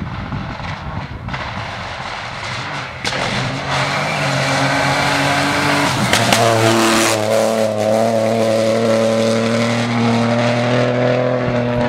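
Rally car at speed on a gravel stage, its engine at high revs, coming closer and loudest as it passes about six seconds in, with a rush of tyre noise. The engine then holds a steady high note as it drives away.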